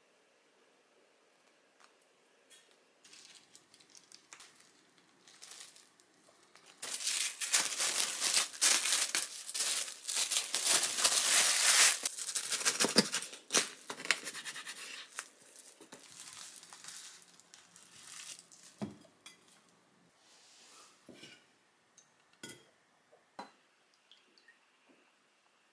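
A crinkly wrapping sheet rustles loudly as a thick sandwich is folded and wrapped tightly in it, from about seven seconds in until about fifteen. Lighter rustles and small knocks of handling follow. Near the end a drink is poured into a glass.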